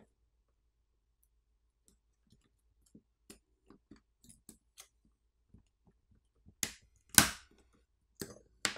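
Small plastic tablet speaker module being worked loose from the frame by hand: scattered light clicks and ticks, then a few louder sharp clacks in the last two seconds.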